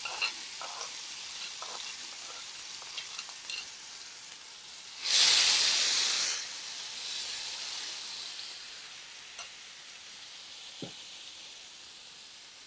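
Sliced masala-coated onions sizzling in hot oil in a non-stick frying pan as they are sautéed with a spatula, with a few light spatula taps in the first few seconds. About five seconds in, the sizzle surges louder for over a second as the onions are stirred, then fades gradually.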